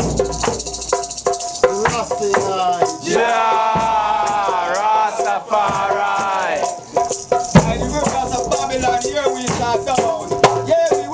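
A group of voices singing a chant together to the steady shaking of rattles, with one long held phrase in the middle.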